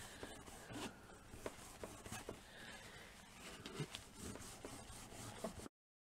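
Faint rubbing of tissue over a dried clay plaque, with a few light taps and clicks as it is handled: excess artist paste being buffed off the crackled surface. The sound cuts off to dead silence near the end.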